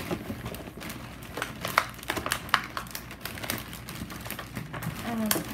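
Plastic shopping bag rustling and crinkling in irregular crackles as a hand rummages inside it.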